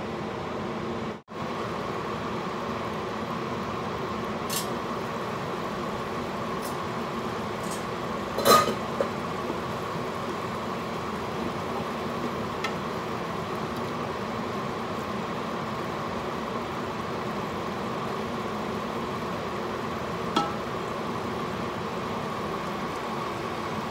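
Wooden spoon stirring ground meat in a stainless steel pot, with a few sharp knocks of the spoon against the pot, the loudest about halfway through, over a steady background hiss.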